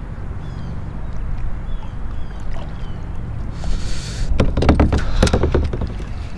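Kayak paddling: a splash of the paddle blade about three and a half seconds in, then a cluster of sharp knocks and clatter on the kayak, over a steady low wind rumble.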